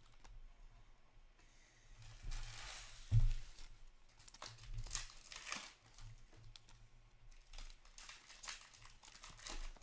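Plastic pack wrapper crinkling and rustling as trading cards are handled, in irregular bursts, with a dull thump about three seconds in.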